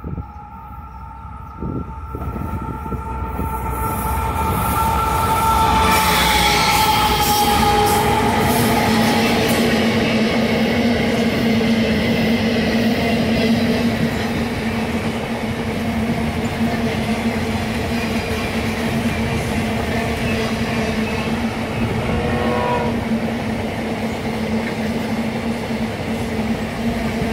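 Empty iron-ore train passing, led by GE ES44ACi and AC44i diesel-electric locomotives: their horn sounds two steady notes for the first several seconds, dropping in pitch as the locomotives pass. Then the engines' rumble gives way to the steady clatter of empty ore gondolas rolling by, with a brief wheel squeal late on.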